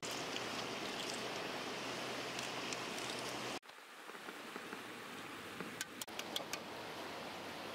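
Steady outdoor hiss, like rain or running water, that drops suddenly to a quieter level about halfway through. After the drop come a few sharp clicks as boiled turtle eggs are peeled by hand in a pan of water.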